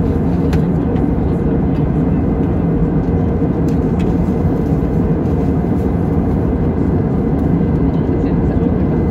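Steady cabin noise inside an Airbus A320 in flight: jet engines and rushing air, heaviest in the low range, with a faint steady high whine.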